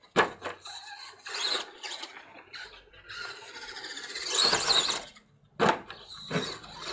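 Radio-controlled truck landing a jump with a sharp, loud knock just after the start, then its motor whining in bursts as it drives, with another sharp knock about five and a half seconds in.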